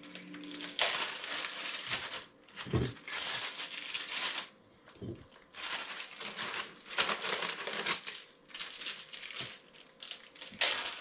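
Plastic crinkling and rustling in irregular bursts as raw chicken drumsticks are handled and pushed into glass canning jars, with two dull knocks about three and five seconds in.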